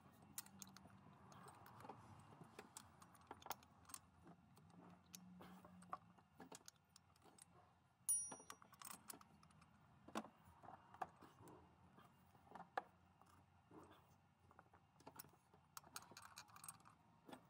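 Faint, scattered metal clicks and taps of bolts being handled and started by hand in an engine bay. One brief metallic ring comes about eight seconds in.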